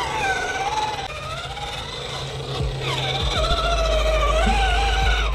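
Background music: a wavering, sliding melody line over a steady bass.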